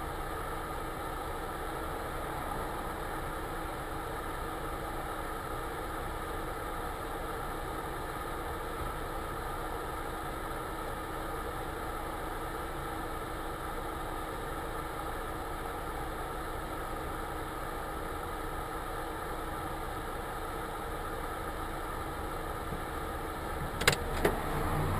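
A car engine idling steadily, heard from inside the cabin. A few sharp knocks near the end.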